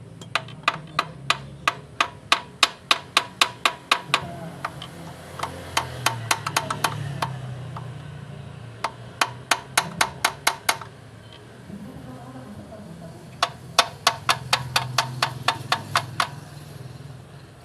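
Sharp, evenly spaced clicks or taps from a hand tool, about four a second, coming in four runs with short pauses between them.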